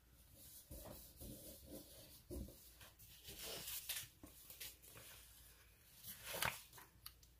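Faint rubbing and rustling of paper stickers and sticker sheets being pressed down and handled on a desk, with a louder rustle about six seconds in as a frame sticker is lifted and handled.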